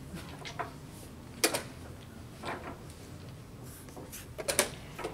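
Sharp wooden clicks of chess pieces being set down on a wooden board and a chess clock's buttons being pressed, coming at irregular intervals about a second apart. The loudest is a quick double click about a second and a half in, and another pair comes near the end.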